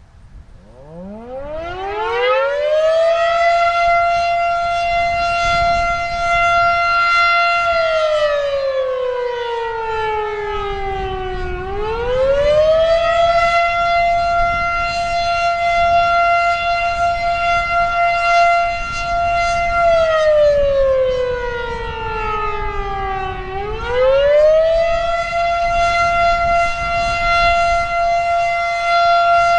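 Federal Signal Model 7 outdoor warning siren winding up from a stop about a second in to a steady high tone, then twice sagging in pitch and climbing back to full tone: the rise-and-fall of the attack signal.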